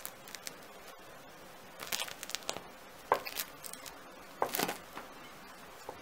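Crisp crust of a freshly baked round yeast loaf crackling under pressing fingertips, in short bursts of crackles about two, three and four and a half seconds in. The crackle shows that the crust has baked crisp.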